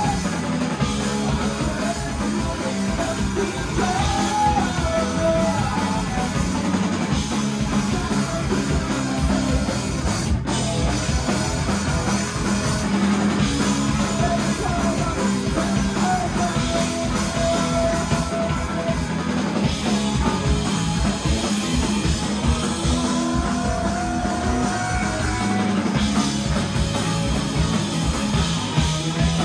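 Live punk rock band playing loud and continuously: electric guitar, bass and drum kit.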